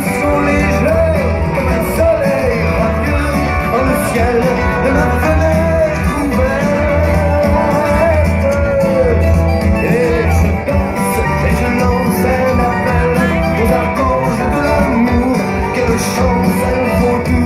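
Music with a singing voice over a steady, pulsing bass beat.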